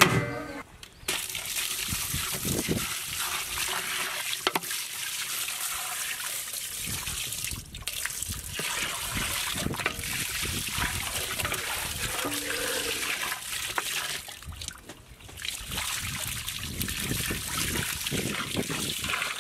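Water pouring in a steady stream into a large aluminium basin over raw mutton legs, splashing as the meat is rubbed and turned in it. It starts about a second in and breaks off briefly twice.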